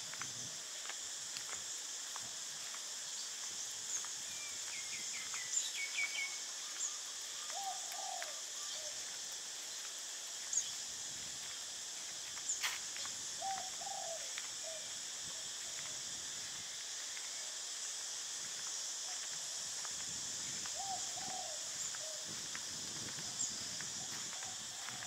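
Birds calling over a steady high-pitched background hiss: a short, low, rising call repeated three times, and a quick run of high chirps. A couple of sharp clicks stand out.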